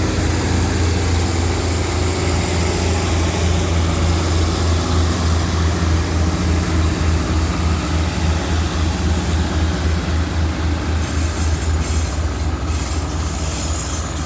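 Diesel passenger train pulling out of the station and running past: a loud, steady low rumble with a rapid regular pulsing.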